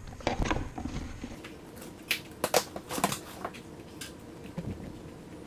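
Packaged spark plug wires and their box being handled by hand: a quick run of crinkles and sharp clicks that thins out after about three and a half seconds into a few faint ticks.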